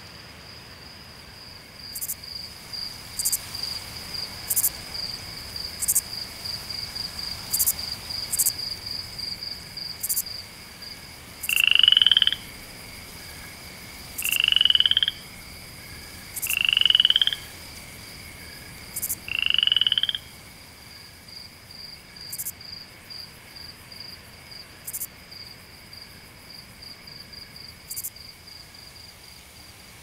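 Natural animal sounds: a steady high pulsing trill with scattered sharp clicks, and four louder rising calls of about a second each, evenly spaced near the middle.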